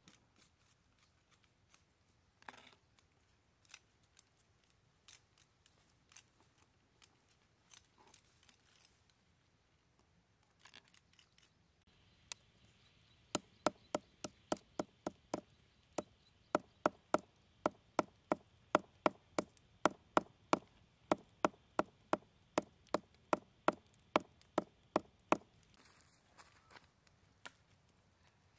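A large knife chopping against the wood at the base of a tree, a steady run of sharp strokes about two and a half a second that starts about twelve seconds in and lasts about twelve seconds. Before it, faint rustling and snapping of leaves and stems being handled.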